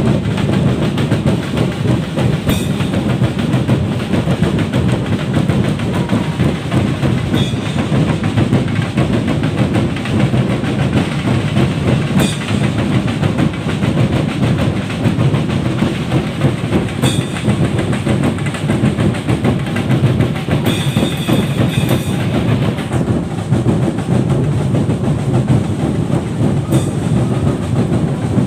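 Loud, fast, continuous drumming, with a sharp crash every few seconds.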